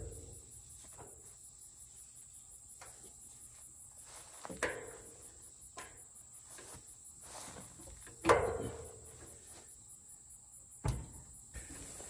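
Scattered sharp metal clanks and knocks with a short ring from work on the rear hitch of a tractor, the loudest about eight seconds in, with another near the end.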